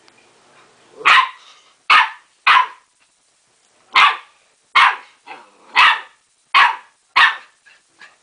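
A dog barking at its own reflection in a mirror, as if at another dog: eight loud, sharp barks in uneven groups over about seven seconds.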